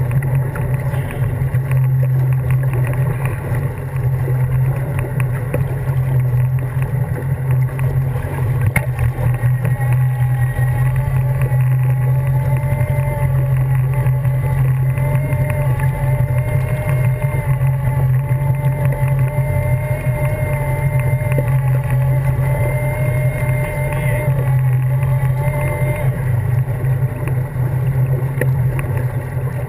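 Wake boat's inboard engine running at a steady idle, heard from the stern as a constant low drone, with a fainter steady higher hum joining in through the middle.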